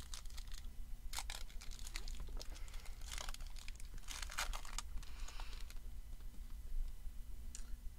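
Foil wrapper of a Bowman Platinum baseball card pack being torn and peeled open by hand, crinkling and crackling in irregular bursts that thin out over the last couple of seconds.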